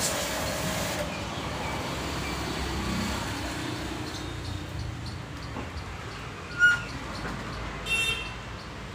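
Pressure-washer water spray hissing on the motorcycle, cutting off about a second in, then the steady hum of passing road traffic. A sharp click about two-thirds of the way through and a brief high chirp near the end.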